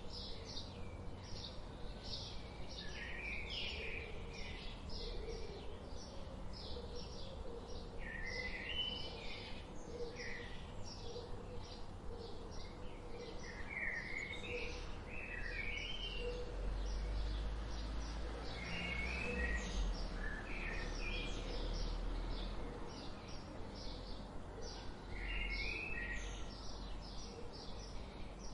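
Several songbirds singing in a forest, with a dense run of short high chirps and a warbling phrase every few seconds, over a low background rumble.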